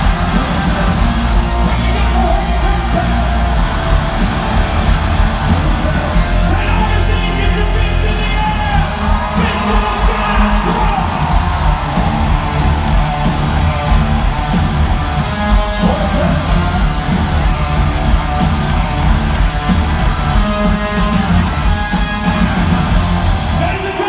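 Rock band playing live in concert, with singing and yelled vocals over loud drums and guitar.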